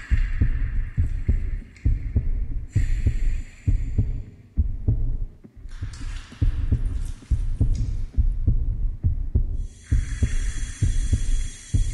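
The storybook app's ambient sound track: deep, uneven throbbing thumps, several a second, with a hissing wash that swells in and drops out a few times.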